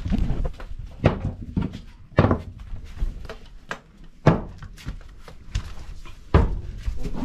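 Irregular thunks and knocks, about a dozen of them, as split coconut halves and a plastic basin are handled and set down beside a wooden coconut-grating stool.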